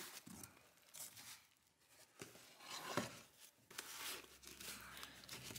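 Faint rustling and rubbing of cardboard and foam packaging as a small black box is lifted out of a cardboard shipping box and its lid taken off, with a short louder scrape about three seconds in.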